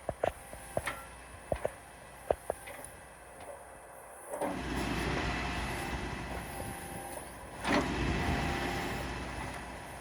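2011 Hitachi ZX135 excavator: sharp metal knocks and clanks over a low diesel engine note. About four seconds in, the engine comes up louder, surges again near eight seconds, then eases off.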